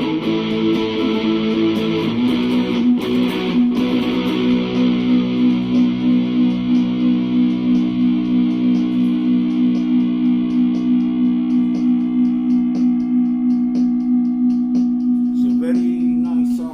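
Epiphone Les Paul Studio LT electric guitar played through a small amp with distortion. A chord is played, then from about two seconds in one chord is held and rings on with an even pulsing in level, cut off near the end.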